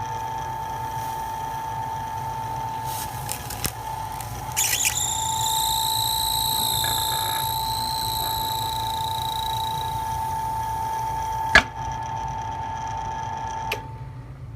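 Electric drill running with a steady whine over a low hum. A higher, wavering whine joins about five seconds in and stops about five seconds later, and a single sharp click comes near the end.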